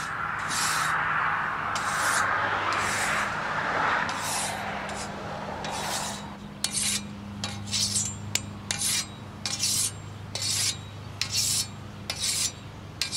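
Scythe blade being sharpened by hand, metal rasping along the edge: a long continuous scrape over the first few seconds, then short quick strokes about two a second.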